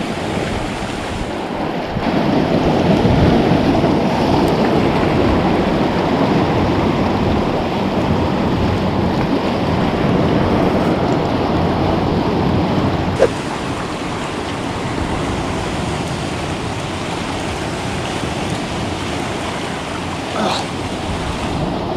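Sea waves washing and surging around rocks on a rocky shore, a steady rush of water noise that is louder in the first half. A single sharp click about halfway through.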